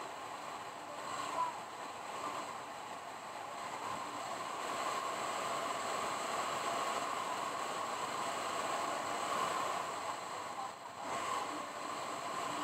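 Steady road and wind noise of a car driving, dipping briefly near the end.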